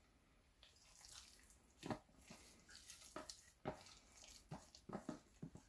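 Faint, irregular squelches and soft scrapes of a gloved hand working rehydrated garlic and paprika into coarsely ground pork in a stainless steel bowl.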